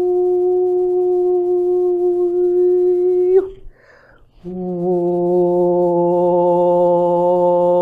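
A woman's voice toning light-language sounds: one long, steady held note, a breath, then a lower held note sustained to the end.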